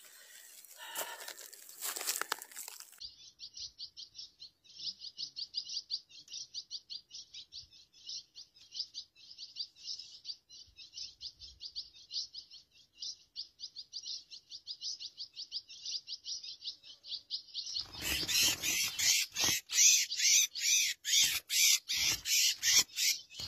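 Brief rustling, then a small songbird chirping in a fast, even series of short high notes, which turn louder and harsher near the end.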